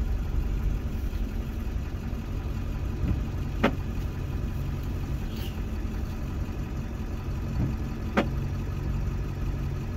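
Steady low engine and road hum inside a pickup truck's cab while driving, with two short sharp knocks, one about a third of the way in and one near the end.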